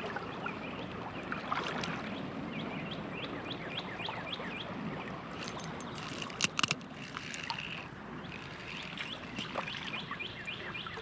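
Creek water running in a steady wash while small birds chirp in quick repeated notes, with a couple of sharp clicks about six and a half seconds in.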